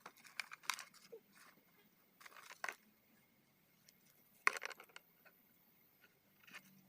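A few scattered short rustling and crunching noises, the loudest about four and a half seconds in, over a quiet background.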